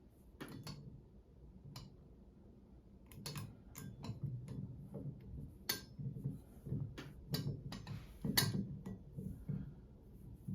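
Metal shower valve trim parts clicking and knocking as they are handled and tightened back on after a cartridge replacement: a dozen or so irregular sharp clicks over soft handling rustle, the loudest about six and eight and a half seconds in.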